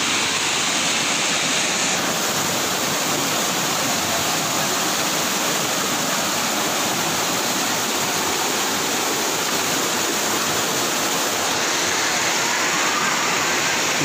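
A shallow, rocky jungle stream and small waterfall: water rushing steadily over rocks, an even, unbroken rush.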